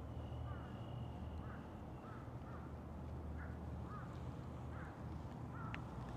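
Black-and-white stray cat purring close up as it is stroked: a steady, deep rumble. Short bird calls repeat in the background.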